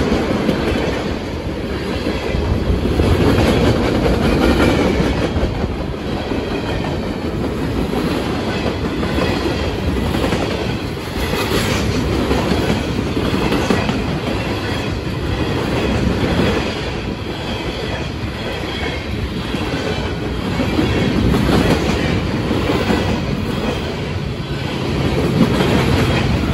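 Freight train cars (tank cars, then empty well cars) rolling past close by, with a steady low rumble and wheels clicking over the rail joints.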